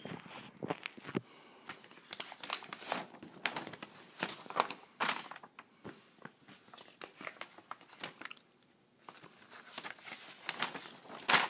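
Paper instruction sheets rustling and crinkling in hand as the pages are handled and turned, in irregular bursts with a short quiet stretch about eight seconds in.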